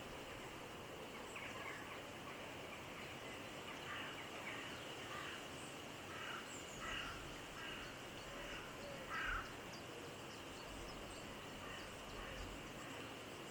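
Mallard ducks giving a scattered series of short calls while feeding, the loudest about nine seconds in, over a steady outdoor background hiss.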